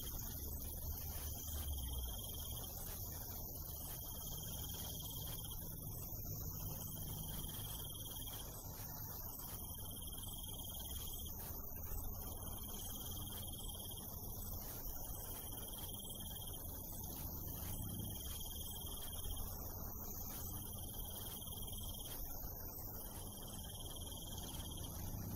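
Crickets chirping at night: a high trill about a second long, repeating every two and a half seconds or so, over a steady higher insect buzz and a low rumble.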